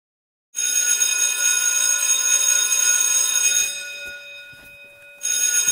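A loud, steady, alarm-like electric ringing or buzzing starts about half a second in. It fades for a second or so in the middle and comes back at full strength just before the end.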